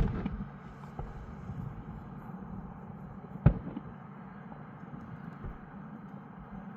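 Aerial firework shells bursting: a sharp bang at the start followed by a brief crackle, a second bang about three and a half seconds in, and fainter thumps in between.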